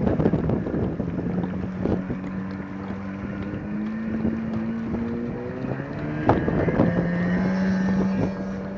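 Personal watercraft (jet ski) engine running out on the water, its pitch climbing slowly with throttle and then settling back to a steady drone.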